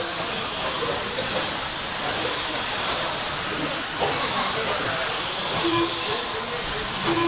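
Electric RC stadium trucks racing over a dirt track: a steady hiss of motors and tyres, with high-pitched motor whines that rise and fall as the trucks speed up and slow down.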